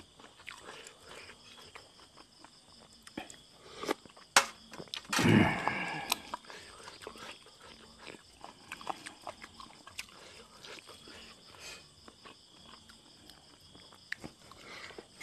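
Close-up eating sounds: wet chewing and lip smacking of chewy boiled buffalo skin, with small clicks of a spoon in a ceramic bowl, and one louder burst of mouth noise about five seconds in.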